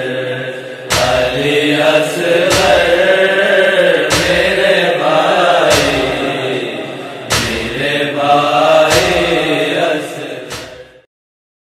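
A boy's voice chanting a nauha, an Urdu mourning lament, over a steady beat of sharp slaps about every one and a half seconds, the chest-beating (matam) that keeps time in a nauha. It fades and stops near the end.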